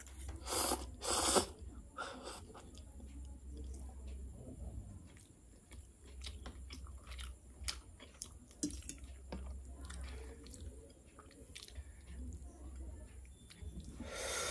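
A person slurping instant noodles loudly twice about half a second in, then chewing with the mouth closed, with scattered small clicks. There is another short noisy burst near the end.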